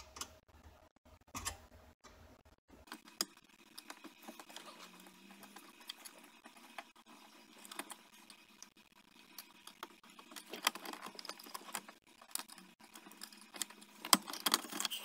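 Hands handling small metal and plastic installation parts for a car stereo's mounting cage: scattered light clicks, clinks and rattles, busier about ten seconds in and again near the end.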